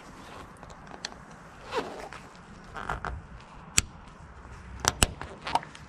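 Small screwdriver prying plastic retaining clips out of a Honda CR-V roof-rail channel: scraping and a few sharp plastic clicks and snaps, the sharpest a single click a little before four seconds in and a quick pair about five seconds in.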